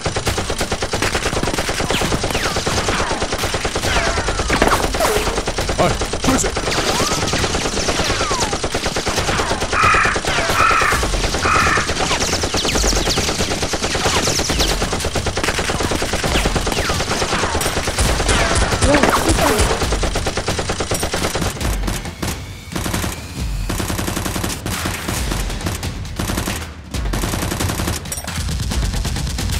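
Rapid automatic gunfire sound effects dubbed over toy Nerf blasters: a continuous rattle of fast shots. In the last several seconds it breaks into separate bursts.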